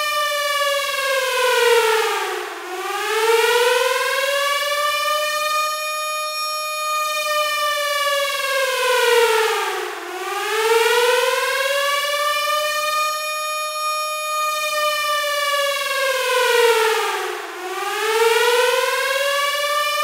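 Air-raid siren wailing: its tone holds high, then sinks and climbs back again, three times about seven and a half seconds apart.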